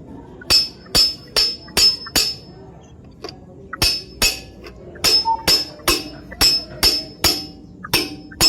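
Hammer blows on a steel drift, metal on metal with a ringing note after each blow, driving out or seating a truck flywheel bearing. There are five quick blows, a short pause, then steady blows at about two and a half a second.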